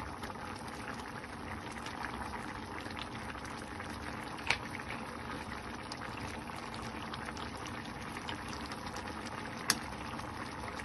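Seafood paella simmering in a frying pan, the fish-stock broth bubbling steadily around the rice. Two sharp clicks, about five seconds apart, as mussel shells are set into the pan.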